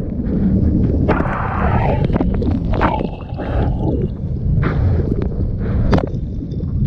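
Heavy low rumble of wind on the microphone, with water sloshing and splashing through it and several louder splashes, as from a camera out in the surf.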